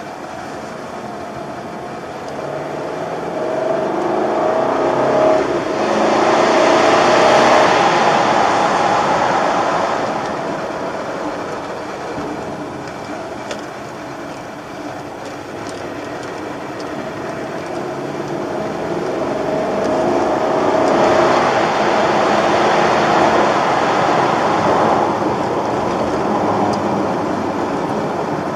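BMW 550i's V8 engine and tyre noise heard from inside the cabin, swelling twice as the car accelerates out of bends: once about five to eight seconds in, and again about twenty seconds in, easing back in between.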